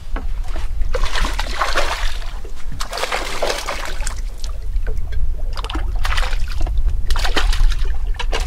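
Water splashing in several short, noisy bursts with small clicks, over a low steady rumble.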